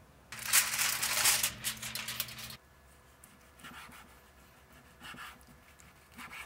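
A loud crackling hiss for about two seconds that stops abruptly, then a knife slicing through a seared steak on a wooden cutting board in three short cutting strokes.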